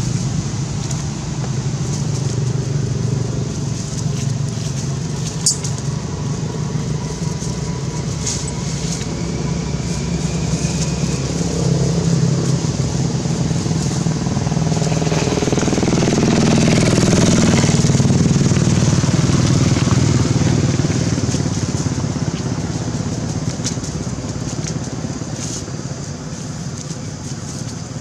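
Engine running steadily, swelling louder a little past the middle and then fading, like a vehicle passing by. A few faint clicks.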